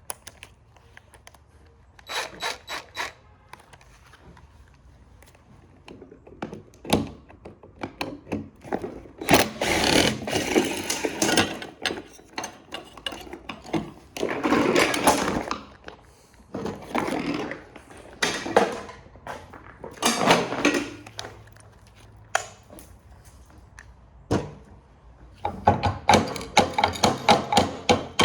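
Power driver run in short bursts, backing screws out of the printer's metal frame, with sharp knocks and clinks of metal between the bursts and a fast pulsing run near the end.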